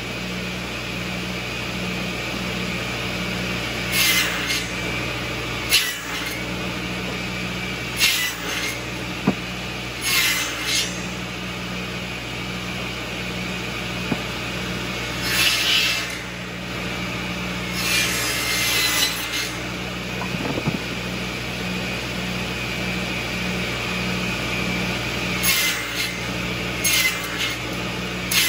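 Balfour Samurai 700 buzz saw running with a steady hum, its circular blade biting through firewood sticks in about nine short cuts to make smoker chunks. The tractor powering it runs underneath.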